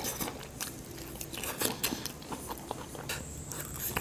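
Close-up mouth sounds of chewing and biting pieces of mutton in curry gravy, with many short wet clicks and smacks.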